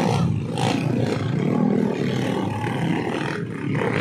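Dirt bike engines revving as the bikes churn through a deep mud pit.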